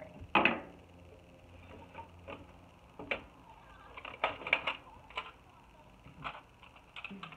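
Makeup products and tools being handled and set down: scattered small clicks and knocks of plastic items, a sharp knock about half a second in and a quick cluster of clicks around four seconds, as an eyeliner is picked out.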